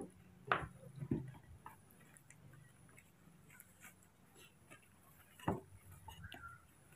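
A mostly quiet room with a few faint, short taps: one about half a second in, one about a second in, and a slightly louder one about five and a half seconds in.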